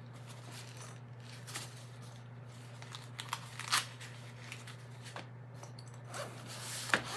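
Zipper of a fabric carrying case being drawn open along its top, a scratchy rasp broken by a few sharp clicks.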